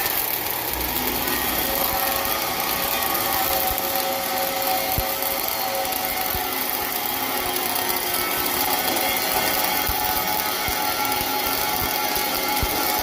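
Electric arc welding in the vertical (3G) position: the welding arc gives a steady hiss with a few sharp clicks.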